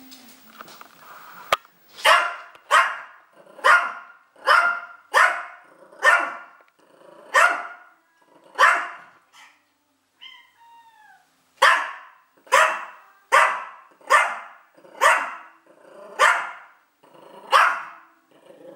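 Yorkshire terrier barking repeatedly, about fifteen short sharp barks in two runs with a pause of about two seconds near the middle. A single sharp click comes just before the first bark.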